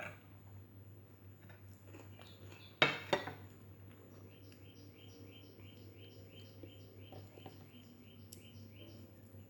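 Two sharp clinks of tableware on a plate about three seconds in, then a bird chirping over and over, about four short chirps a second, above a low steady hum.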